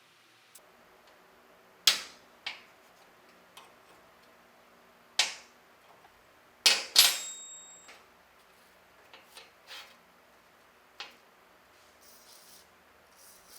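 Hammer blows on metal parts: about six sharp, irregularly spaced knocks with lighter taps between. The loudest is a close pair about seven seconds in, followed by a brief metallic ring.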